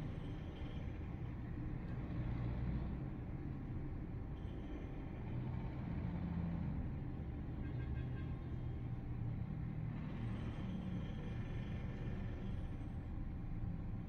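City traffic heard from high above the streets: a steady low rumble of many engines, with fainter higher engine sounds drifting in and out as vehicles pass.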